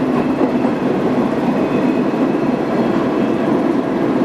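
Vintage subway train running, heard from inside the car: a steady running noise of the car on the rails.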